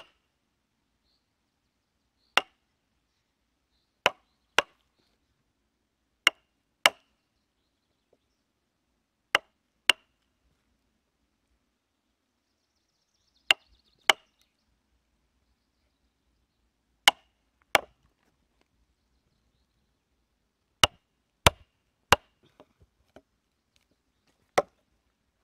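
Hand tools striking wood to split shingle blanks: about fifteen sharp blows, mostly in quick pairs about half a second apart with a couple of seconds between pairs, and a few lighter taps near the end.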